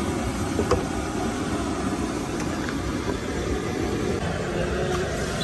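Steady low rumbling noise, with a faint knock about a second in.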